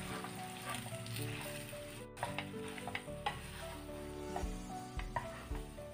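Wooden spatula scraping and knocking against a nonstick frying pan as grated boiled potato is stirred into a spiced vegetable mixture, with a light sizzle. Soft background music with held notes plays underneath.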